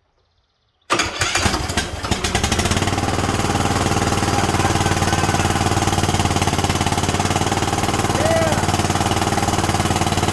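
Kohler engine on a Huskee riding lawn mower starting about a second in and settling straight into a steady, loud run. It runs on a little fuel poured in by hand, its valve clearances just reset after a loose rocker was found.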